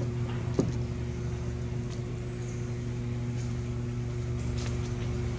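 A machine's steady low hum running throughout, with a light click about half a second in.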